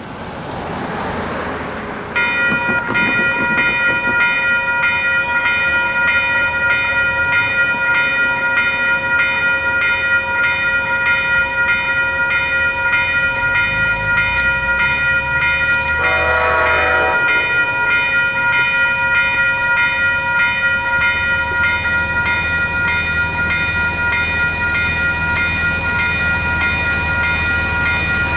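WCH Type 4 electronic railroad crossing bell switching on about two seconds in and ringing steadily and repetitively, with a short horn-like blare a little past halfway. A low train rumble builds in the last several seconds as a passenger train led by a Siemens SC-44 Charger locomotive reaches the crossing.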